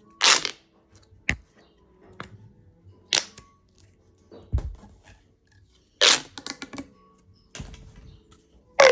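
Corrugated plastic pop tube being stretched and squashed, giving short crackling pops a second or two apart, with a quick run of pops about six seconds in.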